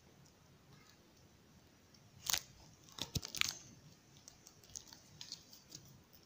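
Small objects handled on a table: a sharp click about two seconds in, a cluster of clicks and knocks a second later, then scattered faint ticks.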